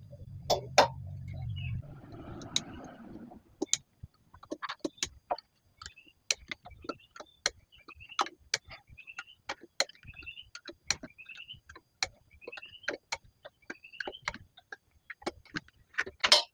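Combination wrench turning a bolt: irregular metal clicks and clinks as the wrench is set on and moved round the bolt head, with short rising squeaks repeating about once or twice a second. A low hum runs under the first two seconds.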